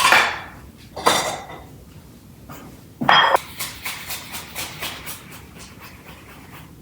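Kitchenware knocked and clattering: three loud knocks, at the start, about a second in and about three seconds in, then a quick run of lighter clicks and taps, as something stuck is worked loose.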